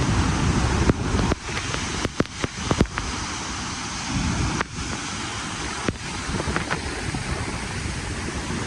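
Steady rush of open water with wind buffeting the microphone, and a handful of sharp clicks about one to three seconds in.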